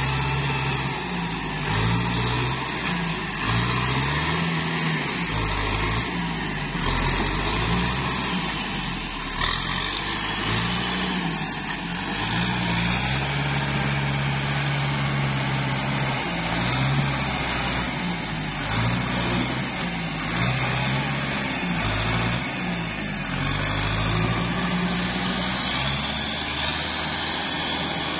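Kubota tractor's diesel engine working hard through deep mud, its pitch rising and falling again and again with the load, over a continuous wash of churning mud and water.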